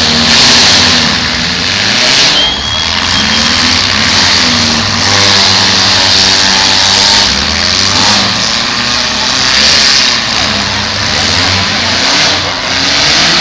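Demolition derby cars' engines running and revving on the dirt track, pitch rising and falling as several cars manoeuvre at once; loud throughout.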